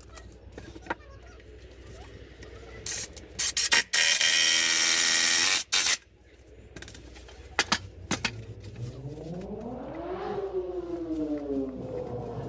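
Cordless drill driving screws into wood. It gives a few short blips, then runs loud and steady for about two seconds and cuts off. Later it winds up in pitch and back down.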